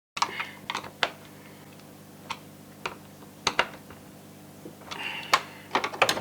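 Scattered sharp plastic clicks and knocks with a couple of brief rustles as a replacement dishwasher soap dispenser is handled and fitted into the door panel.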